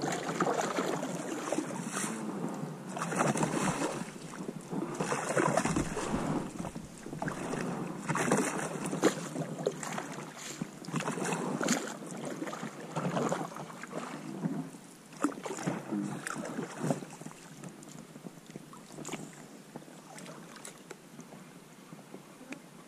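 Rowboat on a river: oar strokes splashing and dipping in the water, coming as uneven bursts every second or two, then easing off and getting quieter for the last few seconds.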